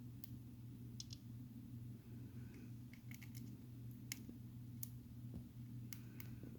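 A hamster cracking sunflower seed shells with its teeth: scattered small, sharp clicks at irregular intervals over a steady low hum.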